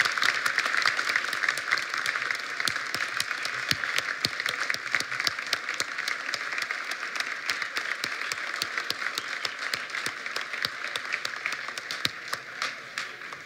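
Audience applauding, loudest at first and slowly dying down.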